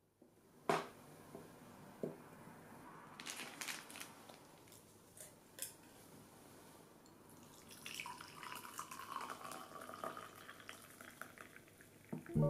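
A few light knocks and clinks of glassware being set down, then, from about two-thirds of the way in, hot water from an electric kettle pouring into a glass cup over a tea bag.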